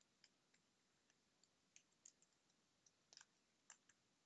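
Faint, irregular key clicks of a computer keyboard being typed on, with a few quick keystrokes together about three seconds in.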